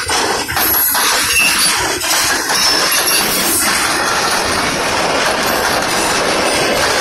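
Freight cars of a passing CSX train rolling by close at hand: a steady rumble and rattle of wheels on rail, with a few clicks over rail joints in the first couple of seconds.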